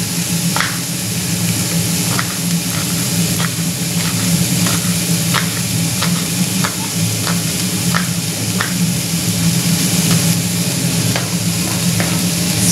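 Diced onion and zucchini sizzling steadily in a frying pan, over a constant low hum. On top of it, a kitchen knife cuts red peperoni into rings on a plastic cutting board: sharp, irregular taps about once or twice a second.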